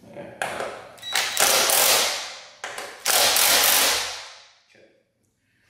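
Cordless drill/driver running screws in through a flexible shaft extension, in three runs, the last one winding down.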